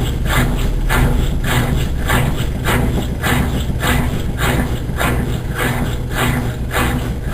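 Consul Maré Super 10 kg washing machine running: a steady motor hum with an even swishing of water and clothes, a little under twice a second.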